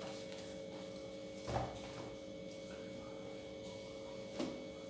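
Steady low electrical hum of the room, with two brief soft sounds, one about a second and a half in and one near the end.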